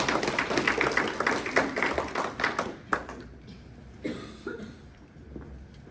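A small audience clapping after a speech, dying away about three seconds in, followed by a couple of light knocks.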